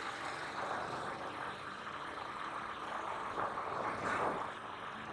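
Wind rushing over the camera microphone with road noise from riding along a road, swelling and easing every second or so.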